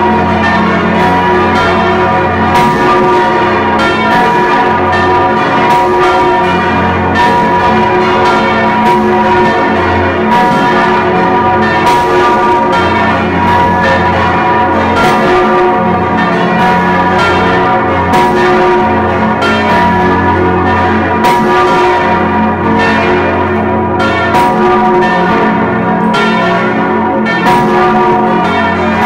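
Church bells swinging and ringing at very close range in the belfry, the nearest being the Stephanus bell of St. Stephan. Irregular clapper strikes come about one to two a second over a loud, continuous ringing hum.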